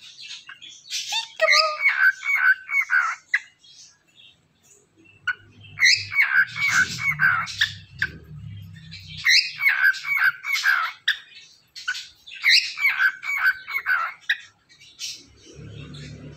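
Cockatiel whistling its song in several bouts of quick, repeated falling notes. The owner takes it as a male showing off to a female.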